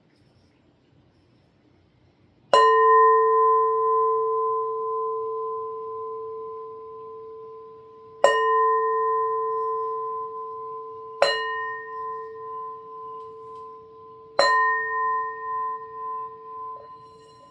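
Singing bowl struck four times at uneven intervals, the first about two and a half seconds in. Each strike rings on as a low tone with a higher overtone above it and fades slowly, so each new strike overlaps the ring of the last.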